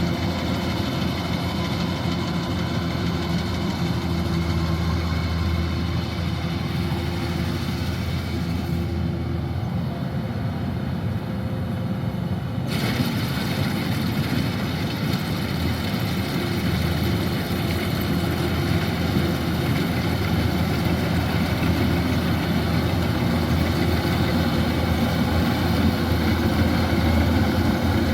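Kubota DC-105X combine harvester's diesel engine running steadily with its machinery, at an even pitch and level. The high hiss drops away for a few seconds about a third of the way in, then returns.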